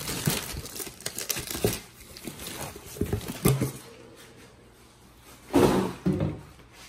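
Plastic bag crinkling and rustling as a moulded-case circuit breaker is pulled out of it, followed by a few knocks as the breaker is handled and set down, and a louder short rush of noise near the end.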